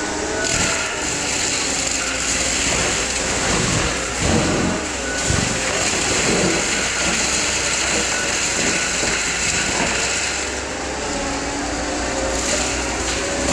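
Case 620 skid steer working with a Shearex mulching head: engine and machinery running steadily and loudly, with a wavering tone through the noise.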